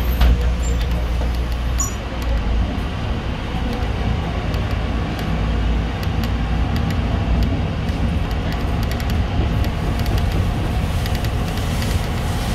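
City bus driving, heard from inside the passenger cabin: a steady engine and road rumble with light rattling clicks, most of them in the second half.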